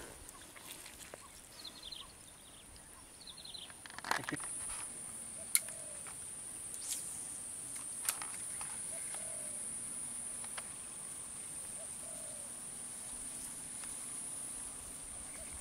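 Steady high-pitched insect drone that grows louder about four seconds in, with faint bird chirps early on and a few sharp clicks scattered through it.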